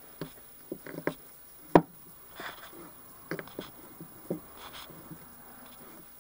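Light clicks and knocks of a rubber seal and a hydraulic cylinder gland being handled and pushed together by hand on a wooden workbench, with sleeve rustle; one sharp click just under two seconds in is the loudest.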